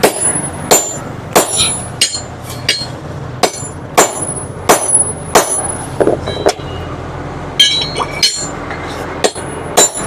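Hammer blows on a steel drift driving the crank pin into one half of a Hero Splendor motorcycle crankshaft during a crank rebuild. About ten steady strikes come roughly every two-thirds of a second, each with a short metallic ring. After a brief pause a few quicker blows follow near the end.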